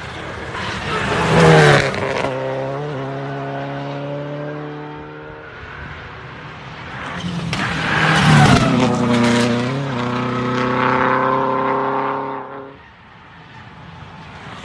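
Two rally cars pass at speed, one loudest about a second and a half in and the next about eight seconds in. Each engine revs hard with quick gear changes, and its pitch drops as it goes by.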